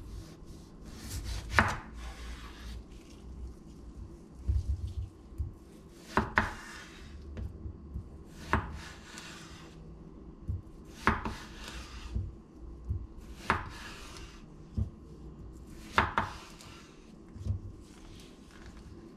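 Chef's knife cutting a raw potato into wedges and sticks on a wooden cutting board. A sharp knock of the blade hitting the board comes about every two and a half seconds, six times. Each knock is followed by a brief swish, with lighter taps in between.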